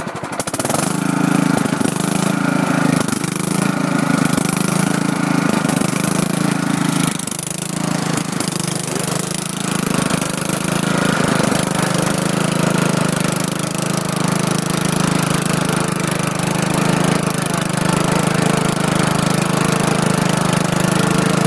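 Riding lawn tractor engine speeding up as the throttle is pushed up from idle about half a second in, then running steadily at speed while the tractor drives through mud, with a slight dip around a third of the way in.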